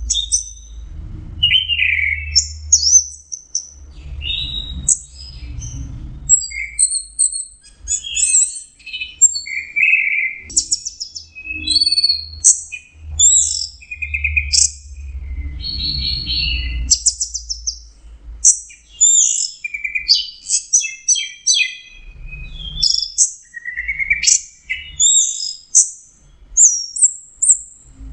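Orange-headed thrush singing a long, varied song of quick high whistled phrases and trills, almost without pause. A low rumbling noise sits underneath at times.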